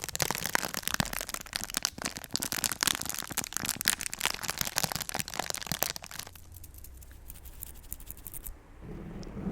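Crinkly paper being crumpled and handled close to the microphone, a dense run of crackles that dies away after about six seconds, leaving a quieter low hum.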